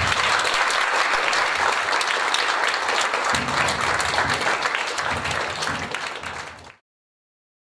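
Small audience applauding, a dense patter of hand claps that cuts off abruptly near the end.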